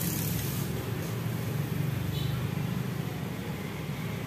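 A small engine idling steadily, a low even hum with a fine regular pulse.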